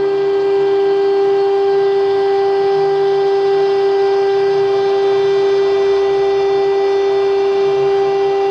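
Stone CNC router spindle running under load while cutting 15 mm marble, one steady, unchanging whine with overtones.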